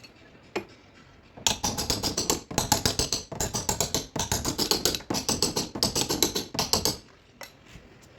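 Rapid light tapping with a paintless dent repair hammer or tap-down tool on a car body panel, several taps a second. It starts about one and a half seconds in and stops near the end.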